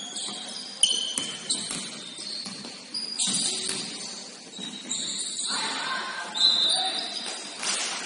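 Shoes squeaking on an indoor court in quick short chirps, with a ball bouncing now and then.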